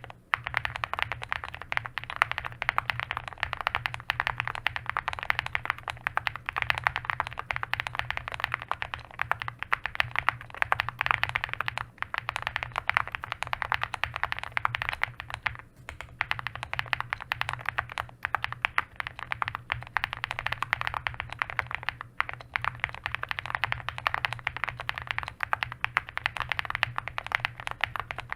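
Continuous fast typing on an Owlab Spring custom mechanical keyboard with an FR4 plate, Tecsee Singularity switches, Durock V2 stabilizers and stainless steel alpha keycaps: a dense run of keystroke clacks with a few brief pauses.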